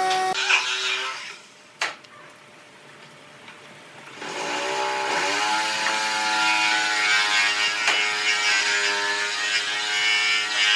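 A power tool's motor winds down and stops in the first second or so, then a single sharp click. About four seconds in the motor starts up again, rising quickly in pitch, then runs steadily.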